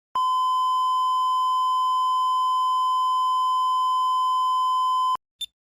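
A steady, unwavering electronic beep tone held for about five seconds, then cut off abruptly, followed by a brief short blip.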